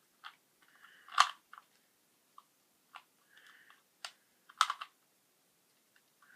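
Rubik's cube layers being twisted by hand: irregular plastic clicks and clacks. There is a sharper clack about a second in and two more just past four seconds.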